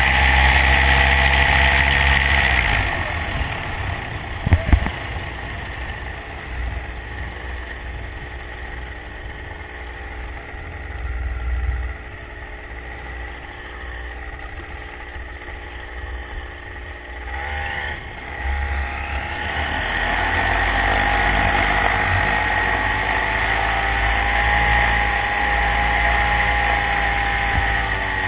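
A motor vehicle's engine running under throttle, easing off about three seconds in and running lower for a long stretch, then revving back up around eighteen seconds in and holding a steady pitch. A single sharp knock about four to five seconds in.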